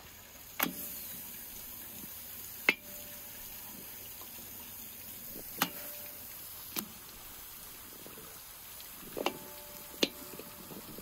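Raw bone-in meat pieces dropped one by one into an empty metal cauldron (kazan). Each lands with a sharp knock and a brief metallic ring, about six times, over a faint steady hiss.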